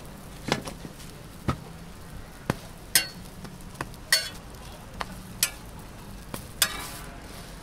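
A metal spatula clinks and taps against a flat steel griddle, about ten sharp knocks spread out irregularly, the loudest about three seconds in. Underneath is a faint, steady sizzle of food frying on the hot plate.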